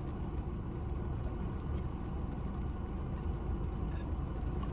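Heavy rain pouring down, a steady hiss over a constant low rumble.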